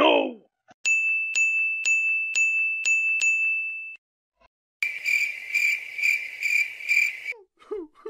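Cartoon sound effects: a brief comic voice at the start, then a steady high electronic tone ticking about twice a second. After a short gap, a pulsing insect-like chirp about two to three times a second, stopping near the end.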